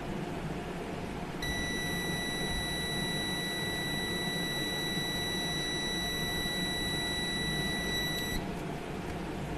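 Austool MT110 digital multimeter's continuity buzzer giving one steady high beep for about seven seconds as its probes touch a laptop motherboard component. The beep starts about a second and a half in and cuts off near the end. It means the meter reads continuity across the probed points, the sign of a short circuit on the board.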